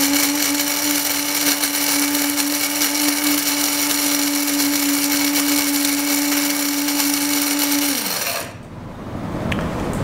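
Moulinex electric blade coffee grinder (180 W) running with its button held down, grinding coffee beans: a steady whine over a dense hiss. The motor stops about eight seconds in, its pitch falling as it spins down.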